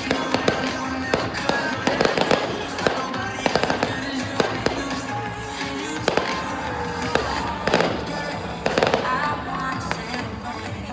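Fireworks going off in rapid, irregular bangs and crackles over loud music playing throughout.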